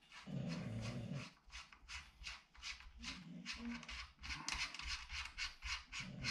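Threaded muzzle piece being screwed by hand onto the muzzle of a G&G PCC-45 airsoft gun: a run of quick small clicks that grows dense and regular, about four or five a second, from about four seconds in. There are short low hums from a man's voice near the start and about three seconds in.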